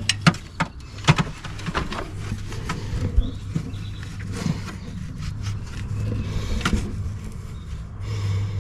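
Irregular metal clicks and clinks from a hand wrench working on the standpipe of a 6.0 Power Stroke diesel's cylinder head, several in quick succession at first, then scattered, over a steady low hum.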